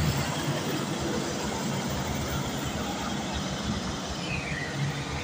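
Heavy diesel trucks running at a standstill, a steady low rumble under road noise. Near the end a high tone dips in pitch and rises again.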